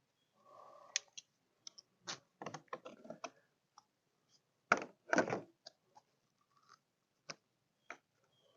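Scattered clicks, knocks and brief rustles from a plastic oil-additive bottle and funnel being handled at the engine's oil filler. A louder pair of knocks comes about five seconds in.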